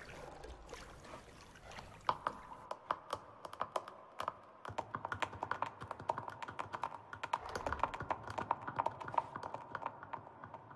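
A rapid, irregular patter of light clicks or taps, several a second. It starts about two seconds in and grows denser about halfway through.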